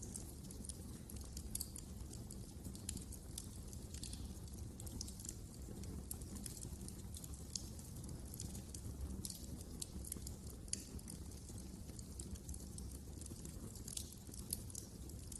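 Wood fire in a fireplace crackling, with many irregular sharp pops and snaps over a steady low rumble of the flames.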